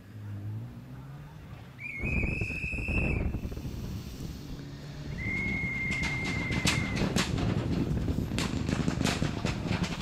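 Mitsubishi Lancer Evolution X rally car running at speed on a gravel stage, its engine getting louder from about two seconds in, with a run of sharp cracks in the second half. Two long, steady whistle blasts sound over it, the first about two seconds in and the second about five seconds in.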